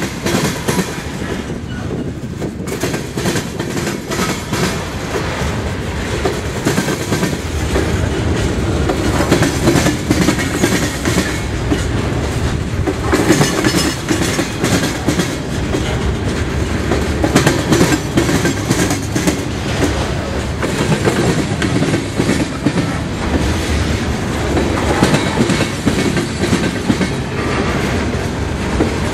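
Freight train of Herzog open-top hopper cars rolling past close by, the steel wheels clacking steadily over the rails.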